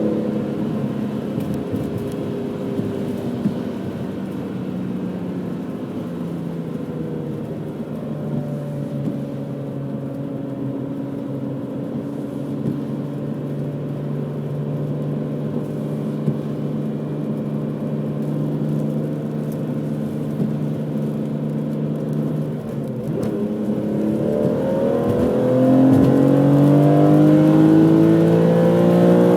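Stock BMW M3 engine and exhaust running at steady revs while driving, then in the last few seconds revving up under acceleration, climbing in pitch and growing louder.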